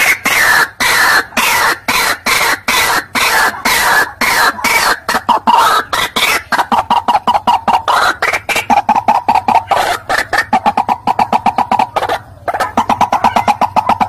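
White-breasted waterhen (ruak-ruak) calling, a playback recording used as a bird lure: a long run of rapid, harsh repeated notes that rise and fall in pitch. There is a short break about twelve seconds in.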